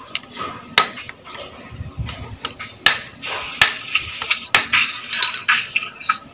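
A hammer striking the metal parts of a dismantled automated-manual transmission shift actuator: about half a dozen sharp metallic knocks at uneven intervals, each ringing briefly, with a quick cluster of taps near the end.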